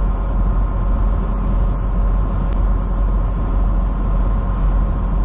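Steady engine and road noise heard inside a moving truck's cab: a low drone with a faint hiss pulsing about twice a second.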